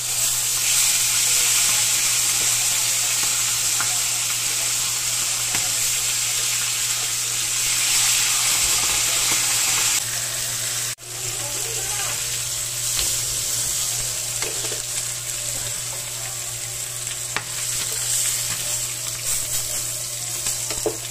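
Whole fish sizzling in hot oil in a frying pan, a steady dense hiss. The sizzle drops out for a moment about halfway through.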